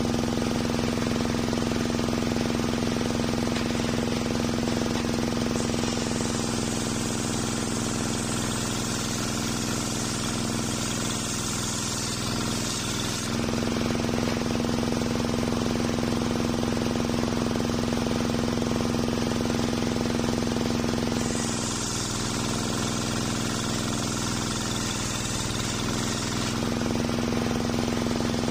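Engine-driven homemade circular-saw sawmill running steadily while its big blade rips an old waru log into boards. There are two hissing cuts, one of about eight seconds and then one of about five, and a third begins near the end. The engine's steady note weakens during each cut.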